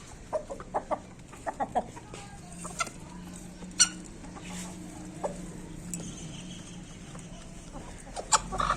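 Desi hens clucking in short, quick calls, most of them bunched in the first two seconds, over a low steady hum, with a couple of sharp clicks.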